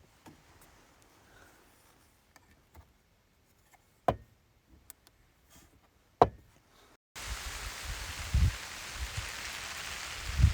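A few soft knocks and clicks against near quiet, two of them sharper about four and six seconds in. About seven seconds in, steady rain hiss starts suddenly, with irregular low thumps under it.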